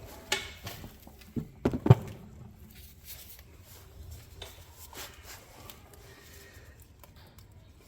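Clicks and knocks of hand tools and parts being handled during the CV axle work. A few sharp knocks come in the first two seconds, the loudest just before the two-second mark, then fainter scattered taps.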